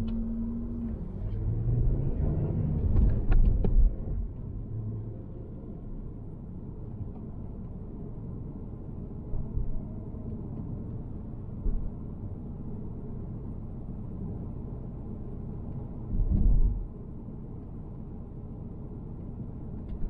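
Car driving, heard from inside the cabin: a steady low rumble of road and engine noise, with a few brief low thumps, the largest about sixteen seconds in.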